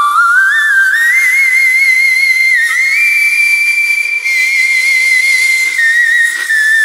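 Female singer in whistle register, isolated from the backing track: one very high, thin sung note that climbs in small steps in the first second, holds steady, then steps down slightly near the end.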